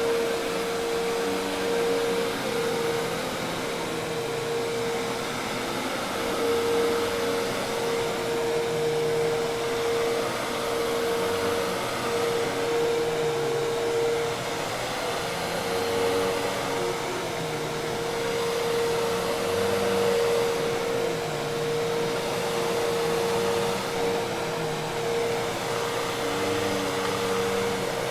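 Hoover Task Vac commercial vacuum cleaner running steadily, its motor holding one constant whine over a rushing hiss of air.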